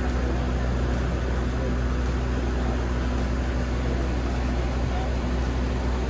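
Passenger boat's engine running steadily underway: a low, even hum heard from on board, with a wash of water and wind noise over it.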